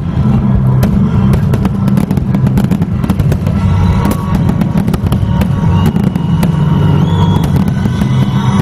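Aerial firework shells bursting and crackling many times in quick succession, with music playing underneath.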